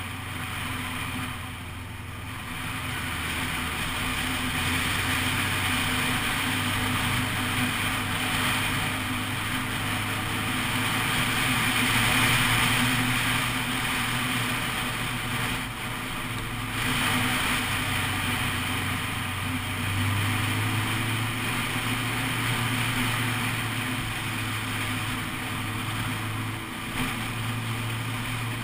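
Honda CBF600 SA motorcycle's inline-four engine running on the move, with a steady rush of wind and road noise that swells and eases.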